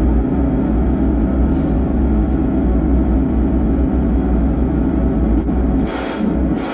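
A 4440-IC amplifier board playing a loud, steady, rough rumbling noise through its loudspeaker, with a heavy low hum. This is the faulty amplifier's cracked, distorted sound, which stays even with the volume turned down.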